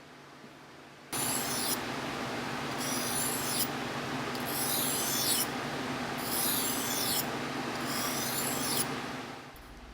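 A steel knife blade making five even rasping strokes, about one every one and a half to two seconds, over a steady scraping hiss that starts abruptly about a second in and fades out near the end.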